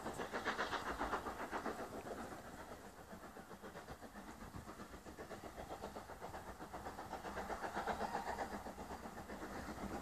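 Steam locomotive working hard, its exhaust beating in a rapid, even chuff, faint and swelling and fading in loudness.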